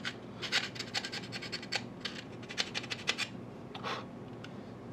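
A small hand file scraping the corners of a cut-out in a plastic model locomotive shell: quick, uneven short strokes, squaring up the opening for a radiator screen. The strokes thin out after about three seconds, with one or two more near the end.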